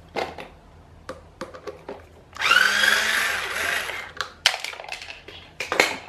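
Power screwdriver running for about two seconds with a rising whine, backing out a Phillips screw from a desk fan's oscillation gearbox. Light clicks and taps of handling the screws and tool come before and after it.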